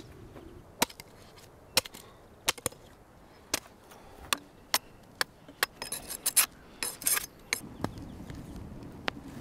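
A large knife striking and cutting into raw meat and bone on a hanging carcass: a series of sharp, short chops roughly once a second, with a quicker run of rasping strokes around six to seven seconds in.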